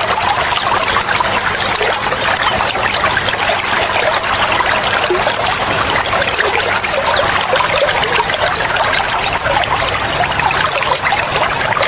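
Running water pouring and trickling steadily, with a small bird's quick run of high chirps at the start and again near the end.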